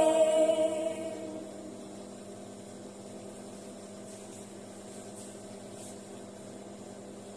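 A woman's sung final note with backing music fades out in the first second or so of a Vietnamese folk song. A faint steady hum with a few held tones stays under it.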